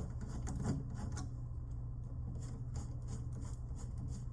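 Light scraping and clicking of hand work on an electrical wall outlet as it is unscrewed and pulled from its box, over a steady low hum.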